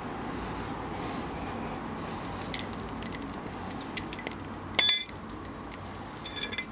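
Metal hand tools clinking: a few faint clicks, then about five seconds in one bright metallic clink that rings briefly, and a few more light clicks near the end.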